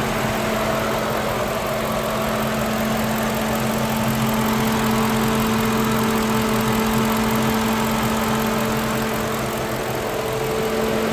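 Lincoln Town Car's newly replaced electric radiator cooling fan running, over the steady idle of the warm V8 engine; a second, higher steady tone joins about four seconds in. The fan switching on and running shows the cooling system is working again after the old fan motor wore out.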